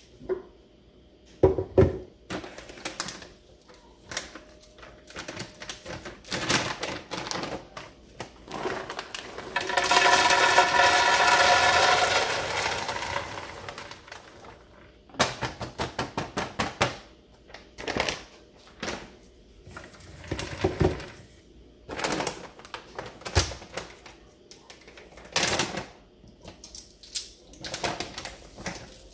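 Roasted peanuts clattering into a plastic blender pitcher as they are poured from a bag: scattered rattles and clicks, with a few seconds of steady rushing rattle near the middle as a full stream of peanuts pours in.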